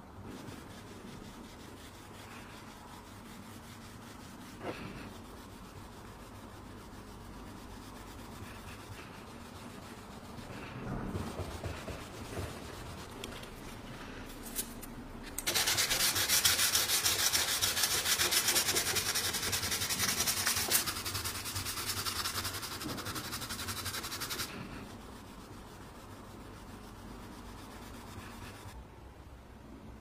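A sanding sponge rubbed by hand over the wooden top of an old coffee maker: a loud, steady scratchy rubbing that starts suddenly about halfway in and lasts about nine seconds. Before it come only quiet sounds of wooden parts being handled, with a light knock about five seconds in.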